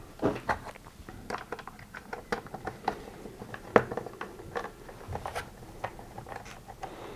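Scattered light clicks and taps of hard plastic parts and a screwdriver being handled as the top cover is fitted onto a Gtech AirRam vacuum's floor head.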